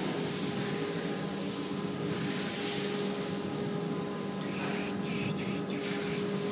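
Steady hiss of an automatic spray-painting machine, with a constant machine hum beneath it. Near the end the hiss breaks off briefly a few times.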